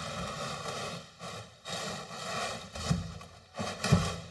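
A heavy 1975 Suzuki GT500 two-stroke twin engine being shifted on a steel workbench onto wooden support blocks: scraping, then several knocks in the second half, the loudest about four seconds in.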